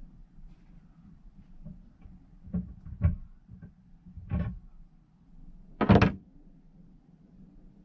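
A few short knocks and clunks over a low steady hum, the loudest a sharp clunk about six seconds in.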